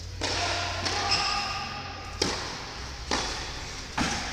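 Tennis ball struck by rackets during a rally on an indoor hard court: a serve, then sharp pops about a second apart. Each pop echoes in the large hall.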